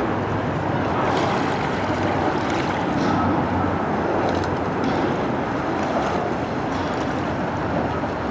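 Steady outdoor rush of wind on the microphone and moving water, with faint short clicks about every second and a half.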